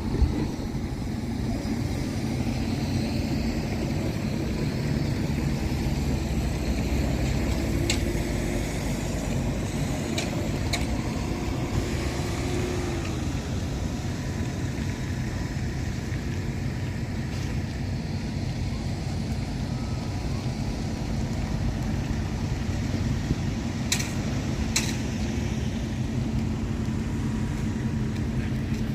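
Steady low rumble of a vehicle in motion, with a faint whine that rises and falls about a third of the way through and a few sharp clicks.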